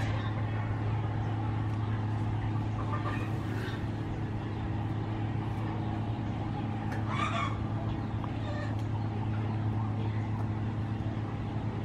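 A steady low hum, with two short animal calls, about three and seven seconds in.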